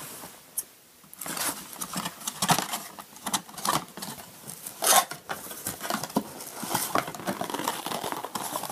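Cardboard packaging being handled: folded cardboard inserts and a small paperboard box scraped, rustled and tapped as they are pulled out of a cardboard carton. The handling picks up about a second in and is loudest about five seconds in.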